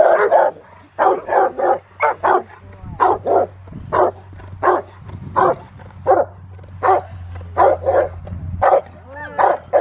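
Rottweiler barking at a helper in a blind during protection training, the bark-and-hold exercise. It is a steady run of barks, about two a second, some coming in quick pairs or threes.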